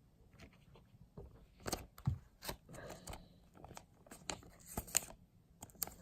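Pokémon trading cards being slid and flicked through by hand, an irregular run of short card clicks and scrapes, sharpest about two seconds in and again near five seconds.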